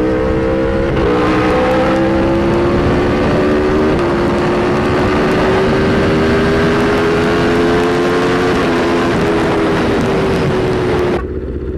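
Aprilia RSV4 Factory's V4 engine through an SC-Project CRT exhaust, pulling hard at highway speed with wind rush. The note climbs slowly in pitch and dips briefly a few times as the bike shifts up. Near the end the sound cuts abruptly to a much quieter engine and traffic.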